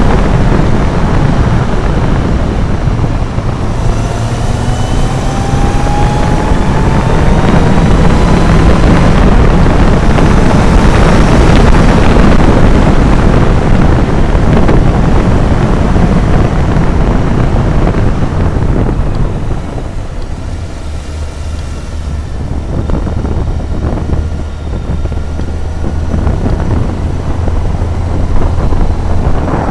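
Motorcycle on the move, its engine running under heavy wind noise on the microphone. A few seconds in, the engine note climbs slowly as it accelerates. About two-thirds of the way through the wind noise drops, leaving a steady low engine hum as the bike slows.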